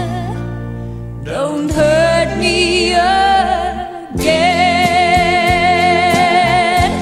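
1970s pop ballad: long sung notes with vibrato over a steady backing band, with brief breaks about a second in and again around four seconds.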